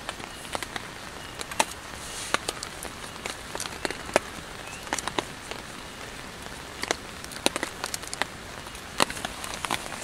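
Scattered sharp clicks and taps of aluminium tent pole sections being handled and fitted together, over a steady hiss.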